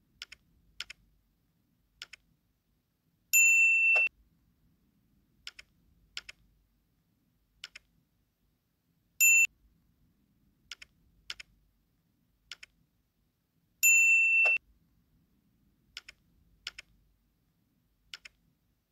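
Mouse-click sound effects and a bright notification-bell ding from a like-and-subscribe animation. Short single and double clicks come every second or two, with three dings in all, the first and last ringing a little under a second.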